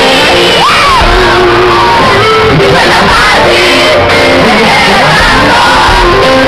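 Live band playing a song, with the lead singer on a microphone and a crowd singing and shouting along loudly.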